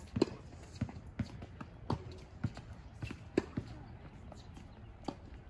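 A tennis ball being hit with a racket and bouncing on a hard court: a string of sharp knocks about every half second, the loudest about a quarter second in and another just past the middle, then a last one near the end.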